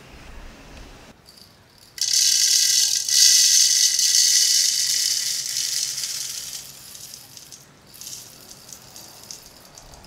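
Whole coffee beans poured from a glass jar into a plastic grinder hopper, rattling loudly. The pour starts suddenly about two seconds in, runs strong for about four seconds, then thins to a lighter trickle of beans.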